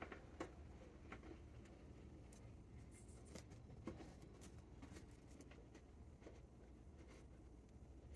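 Near silence with faint, scattered, irregular clicks and light taps of small metal mounting hardware being handled and fitted by hand.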